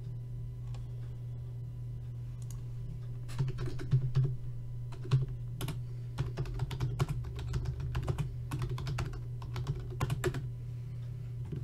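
Typing on a computer keyboard: a run of quick keystrokes starting about three seconds in and stopping shortly before the end, over a steady low hum.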